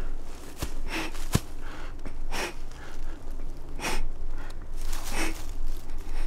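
A person breathing heavily and fast, about four loud breaths roughly a second and a half apart, with two short clicks in the first second and a half.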